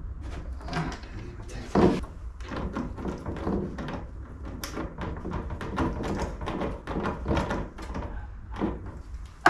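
Hand screwdriver tightening a worm-drive Jubilee hose clip on a rubber fuel hose at a plastic diesel tank: a quick run of short clicks and scrapes, with a louder knock about two seconds in.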